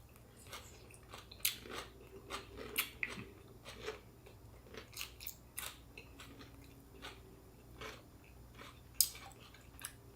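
Close-miked chewing of fresh spring rolls (rice paper around raw lettuce, cucumber, bean sprouts and boiled shrimp): soft, irregular crunches and wet mouth clicks, with one sharper click about 9 seconds in.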